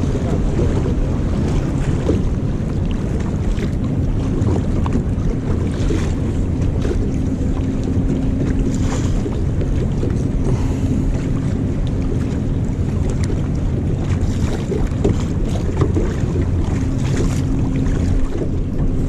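Wind rumbling on the microphone over choppy water lapping at an anchored boat, a steady low roar; a faint steady hum comes and goes twice.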